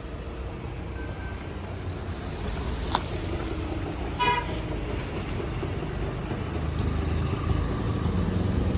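Steady low rumble of road traffic, with one short vehicle horn toot about four seconds in and a sharp click shortly before it.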